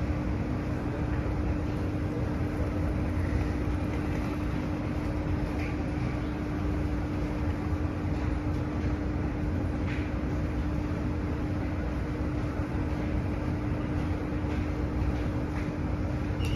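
Steady hum of a Kawasaki & CRRC Sifang CT251 metro train standing at a platform with its doors open, its onboard equipment running with a constant low tone.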